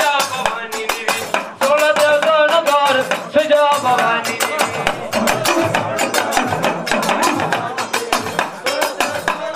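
A man singing a devotional folk song into a microphone over rapid, even beats of a small double-headed hand drum.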